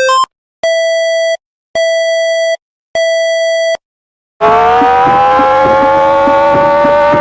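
Alert tones. The tail of a run of quickly alternating high and low beeps, then three long electronic beeps, each about a second long with short gaps. About four seconds in, a siren winds up, rising in pitch and levelling off into a steady wail with a faint regular ticking under it.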